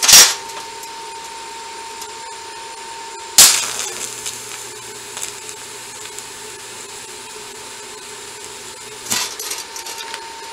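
TIG welder tacking a bracket. There is a sharp crack right at the start and another about three seconds in as the arc strikes. A steady low buzz of the arc follows and stops with a few crackles near the end.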